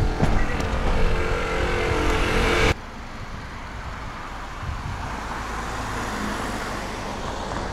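A car on the move: engine and road rumble with a few steady tones, which drops suddenly to a quieter, even road noise a little under three seconds in.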